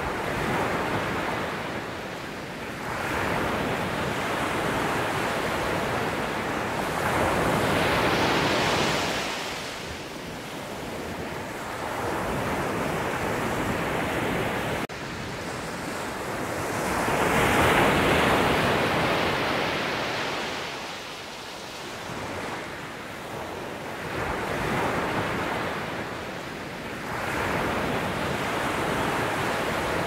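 Sea surf breaking over boulders and washing onto a rocky, pebbly shore. The rush of water swells and falls every few seconds, with the biggest surges about eight and seventeen seconds in.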